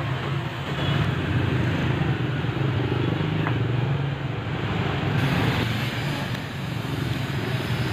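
Steady street traffic noise, with the low rumble of motorbike engines running by.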